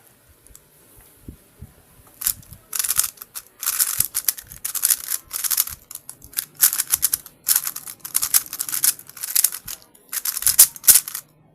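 MoreTry Super MagLev speed cube being turned rapidly during a timed solve. Its layers make dense clacking in quick bursts of fast turns, starting about two seconds in.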